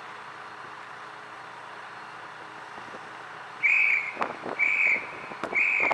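Steady wind and sea hiss, then, about three and a half seconds in, three short high whistle blasts of the same pitch, about a second apart, with a brief noise between the first two.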